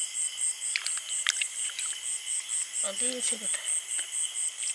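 Crickets chirping steadily at night, a high pulsing trill at about five pulses a second, with a few soft splashes of hands working in shallow muddy water. A brief voice comes in about three seconds in.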